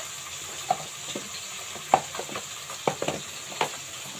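A handful of short knocks and rustles as onions, garlic cloves, jars and plastic bags are handled in storage baskets, over a steady hiss from the cooking pot on the gas stove.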